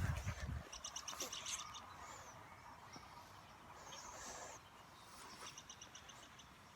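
Wild songbirds chirping: a quick run of about eight short high notes about a second in, a longer single note near the middle, and another quick run near the end. A low rumble stops about half a second in.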